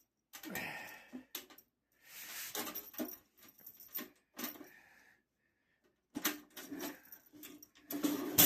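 Irregular clicks, knocks and rubbing from an empty cash drawer being handled, in short bursts with a couple of brief pauses.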